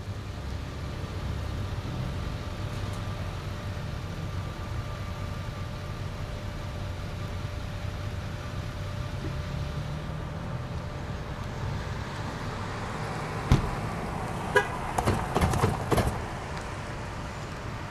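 Ford Super Duty hi-rail truck rolling slowly along the rails: a steady low rumble, broken between about 13 and 16 seconds in by a brief cluster of sharp clanks and knocks with a short tone among them.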